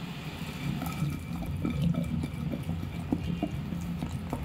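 Stone pestle grinding wet gongura (sorrel leaf) chutney in a stone mortar: soft wet mashing with scattered light knocks at an uneven pace, over a steady low hum.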